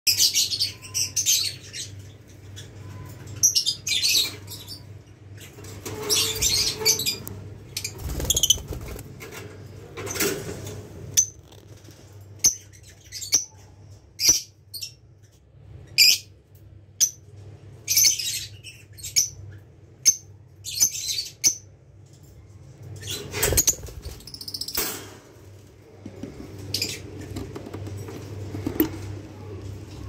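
Lovebirds calling in their breeding cages: short, sharp, high-pitched chirps that come in irregular bursts again and again, with a few dull bumps in between.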